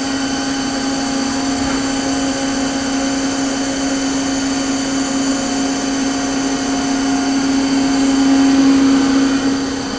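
Powered-up YCM Supermax CNC vertical machining center humming steadily: motors and cooling fans running, with one strong steady tone over a whirring haze, swelling slightly near the end.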